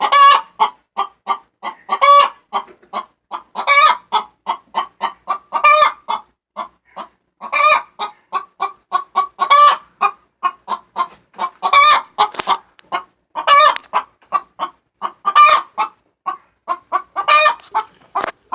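A hen cackling loudly: quick runs of short clucks, each broken by a louder, drawn-out squawk about every two seconds, over and over. It is the agitated calling of hens squabbling over a nest box.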